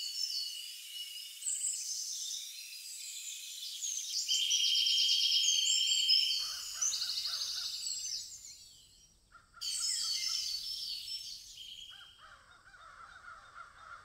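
Added forest-ambience sound effect: many songbirds chirping and trilling, with crows cawing coming in about six seconds in. It breaks off briefly near nine seconds, then fades.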